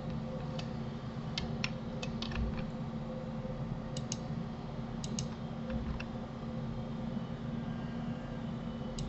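Scattered sharp clicks of a computer mouse and keyboard, about a dozen in the first six seconds, several in quick pairs, over a steady low hum.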